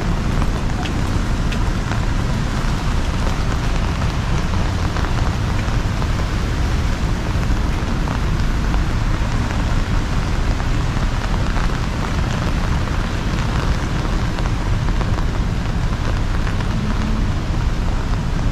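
Heavy rain pouring steadily, with a constant low rumble underneath.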